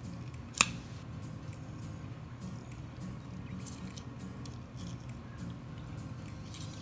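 Half a lime squeezed by hand over a bowl of soup: faint wet squishing and a few soft ticks, with one sharp click about half a second in, over a steady low hum.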